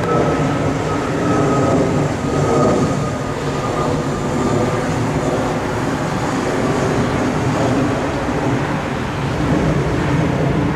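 Airliner's engines running with a loud, steady rumble as the plane passes. A faint high whine near the start slides slightly down in pitch and fades.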